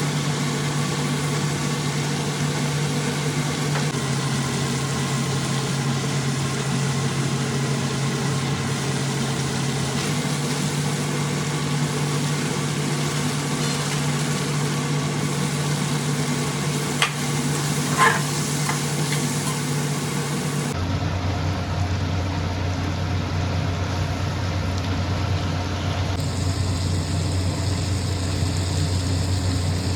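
Food sizzling in a pan over a steady low mechanical hum, with two short clinks about seventeen and eighteen seconds in.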